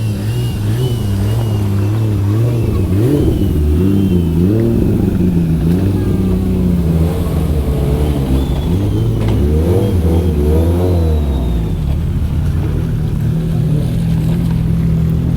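Car engine revving, its pitch rising and falling again and again.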